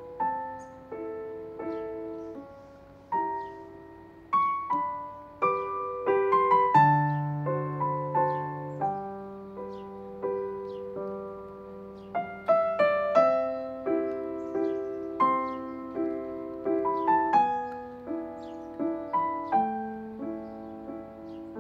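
Piano music: a melody of single notes over chords, each note struck and then fading away.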